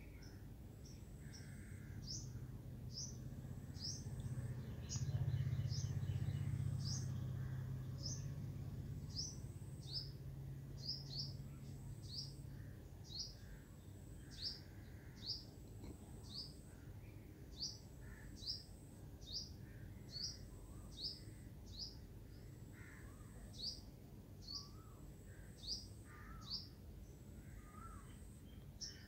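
A small bird calling over and over: short, high chirps that drop in pitch, roughly one a second. A low rumble swells and fades during the first dozen seconds.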